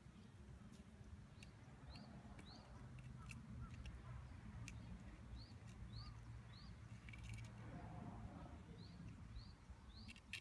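Faint bird chirps, short upward-rising notes that come mostly in pairs, three or four times over the stretch, over a low steady hum, with a few soft clicks.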